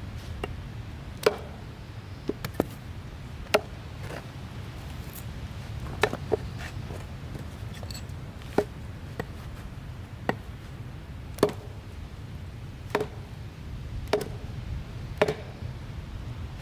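Chopping: about a dozen sharp knocks, one every second or two at an uneven pace, over a steady low rumble.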